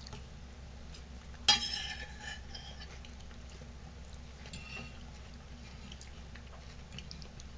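Metal cutlery clinking against a dish: one sharp clink about a second and a half in that rings briefly, then a fainter clink a few seconds later, over a low steady hum.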